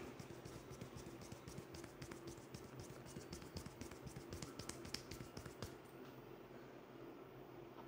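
Soft, quick, irregular taps and rubbing of fingers and palms on a man's forehead and scalp during a head massage; the tapping stops about six seconds in.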